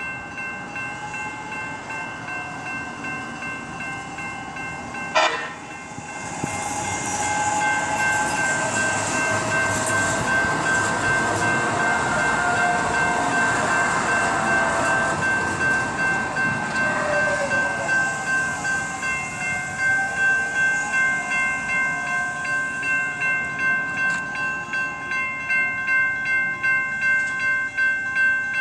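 Grade-crossing warning bells ring in a steady, pulsing ding as two light-rail trains, a Siemens P2000 and a Nippon Sharyo car, pass each other through the crossing. A sharp crack comes about five seconds in. From about six seconds the trains' wheel noise and a rising and falling motor whine swell, easing after about eighteen seconds, when the bells stand out again.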